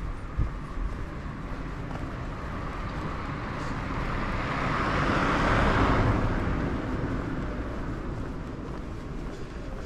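A road vehicle passing by: its noise swells, is loudest about five to six seconds in, then fades away, over a steady low rumble.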